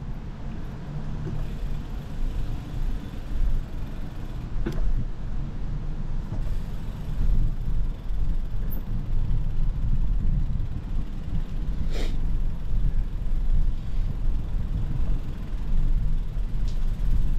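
Outdoor ambience: a steady, low, uneven rumble, with two brief sharp clicks about five and twelve seconds in.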